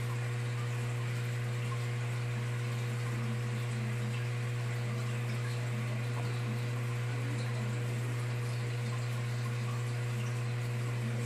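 Steady low hum from running aquarium equipment, with a faint even hiss of water over it.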